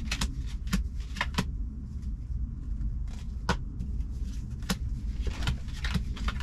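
Playing cards being flipped and laid down in a game of solitaire: about ten sharp clicks and snaps at uneven intervals, some in quick pairs, over a low steady rumble.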